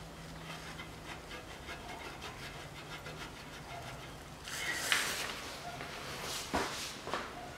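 Faint clicks and rubbing as the fill plug with a new sealing ring is threaded by hand into a Nissan Qashqai's transfer case, then a louder scraping rustle about halfway through as the hand comes away from the underbody, and a couple of sharp clicks near the end.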